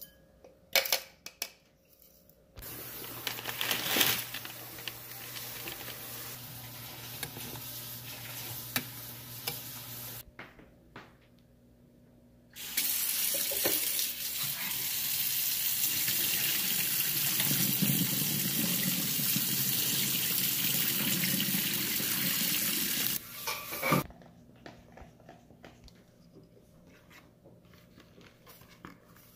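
Kitchen tap running into a stainless steel sink: a softer stream for several seconds, then, after a short pause, a louder, fuller stream for about ten seconds that shuts off suddenly. A few light clicks and knocks come before and after.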